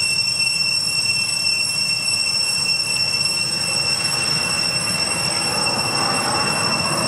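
Steady high-pitched drone of cicadas, one unbroken whining tone with its overtones.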